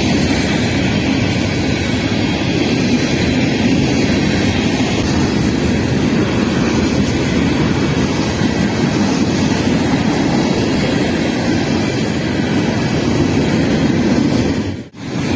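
Freight train rolling by, a loud steady rumble with no horn; it drops out for an instant near the end.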